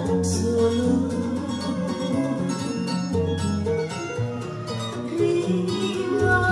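An Indonesian song with a strong bass line playing through a pair of home-built two-way bookshelf speakers (SB Acoustics SB15NAC woofer, SB29RDNC tweeter), driven by a Blameless 100 (BL100) power amplifier and picked up in the listening room.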